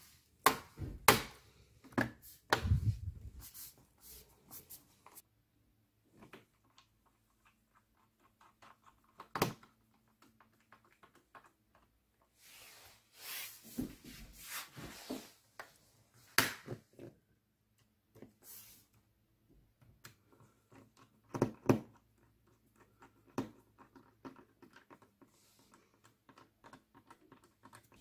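Plastic back cover of a laptop being fitted back on and pressed into place: scattered clicks and knocks, with a few brief scraping noises about halfway through.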